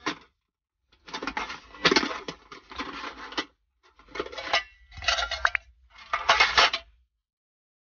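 Metal camp cookware and utensils clinking and clattering in several short bursts, stopping about seven seconds in.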